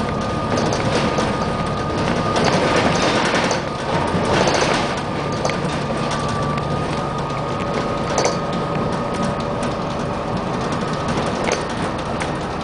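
Inside a moving double-decker bus: the diesel engine's hum and road noise, with frequent rattling clicks from the body and fittings and a thin steady whine.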